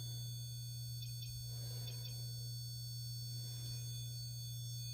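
A steady low hum with faint, thin high-pitched whines above it, unchanging throughout.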